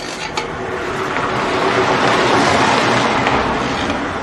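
A motor vehicle passing by: engine and road noise swells to a peak about halfway through, then slowly fades.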